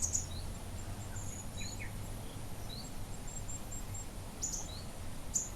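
Outdoor ambience of birds chirping: short high chirps and quick little runs of twitters come and go over a faint steady low hum.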